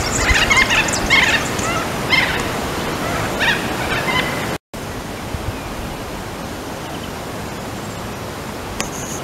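Small birds chirping in quick short calls over a steady hiss for the first four seconds or so; after a brief cut only the steady hiss remains.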